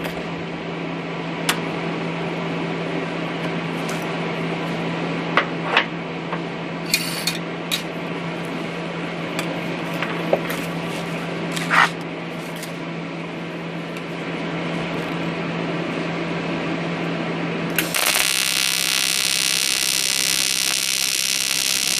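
Steady machine hum with scattered clicks and taps of metal parts being handled. About three-quarters of the way in, a loud buzzing hiss starts abruptly: a welding arc struck on the aluminium throttle body.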